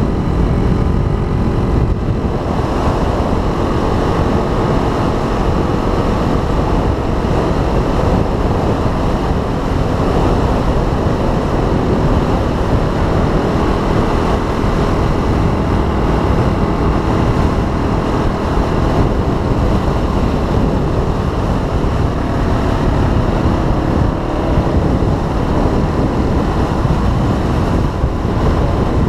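Heavy wind noise buffeting the microphone of a Yamaha 250 dual-sport motorcycle at road speed, with its single-cylinder engine running steadily underneath.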